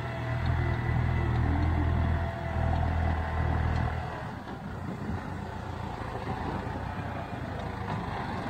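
Large farm tractor's diesel engine running as it works the ground, a deep rumble that drops off about four seconds in and carries on more quietly.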